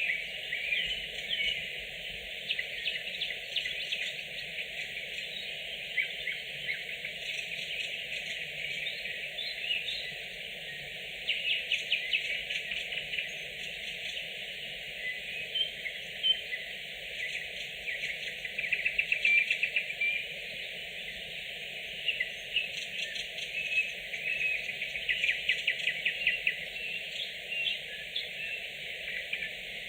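Nightingales singing: phrases of fast repeated notes and trills, in bursts with short pauses between them, over a steady background hiss.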